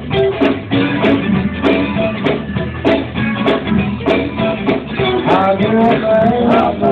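Live church band, electric guitar over drums, playing an up-tempo gospel groove with drum hits about twice a second. A voice begins to sing a wavering line about five seconds in.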